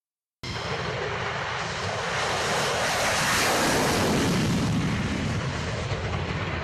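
Military aircraft in flight: a steady rushing engine noise that starts abruptly about half a second in, swells to its loudest around the middle and eases off a little toward the end.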